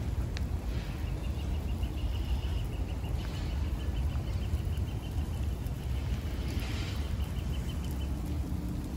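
A songbird repeating one short high chirp several times a second in an even trill, starting about a second in and stopping near the end, over a steady low rumble.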